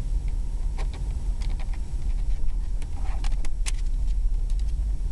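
Steady low rumble of a moving pickup truck heard from inside the cab, with a few irregular clicks and taps over it, most of them past the middle.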